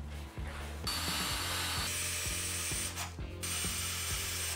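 Cordless drill driving screws into plywood, running in two spells with a short stop about three seconds in, each with a high steady whine. Rapid, evenly spaced ratcheting clicks run underneath.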